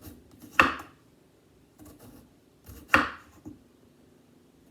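Kitchen knife slicing thin rounds off a raw potato by hand, the blade coming down sharply twice, about two seconds apart, with a few faint ticks between.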